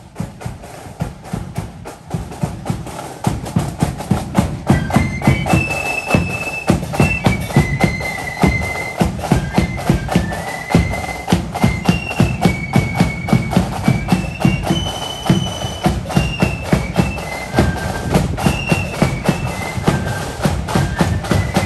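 Marching flute band playing: drums beat a steady march rhythm, and the flutes come in with a high tune about four seconds in.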